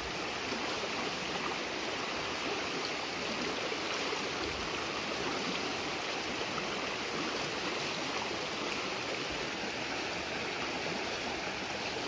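Muddy flash-flood water rushing down a swollen creek, a steady loud rush. The creek is in spate from heavy rain upstream.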